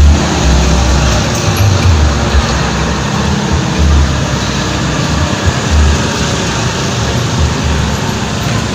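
Heavy rain and strong wind, a loud steady rushing noise, with gusts buffeting the microphone in irregular low rumbles.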